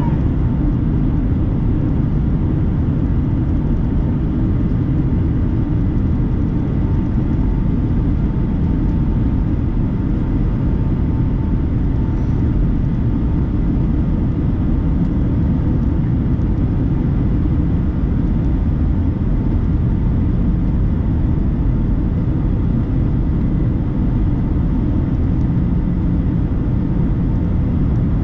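Steady cabin roar inside a Boeing 757-300 in flight, heard from a window seat over the wing: a constant low rumble of engine and airflow noise with no change in pitch or level.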